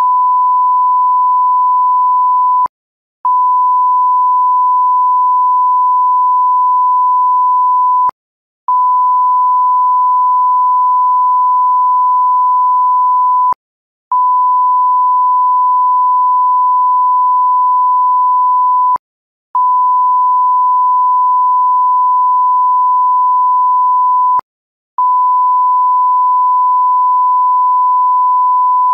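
Censorship bleep: one steady, high-pitched pure tone, held for about five seconds at a time and broken by short half-second gaps, with a faint click at each cut-off.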